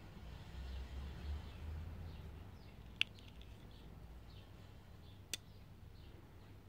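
Two sharp clicks, a little over two seconds apart, as a linerlock folding knife is closed: the first followed by a short rattle of smaller clicks, the second as the blade snaps shut into the handle onto its ceramic detent ball. Faint bird chirps and a low wind rumble on the microphone behind.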